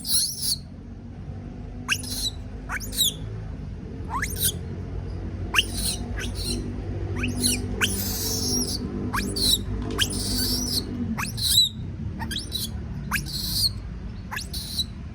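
Baby monkey screaming in fear at being left alone: a string of short, shrill shrieks, each sliding sharply down in pitch, about one a second.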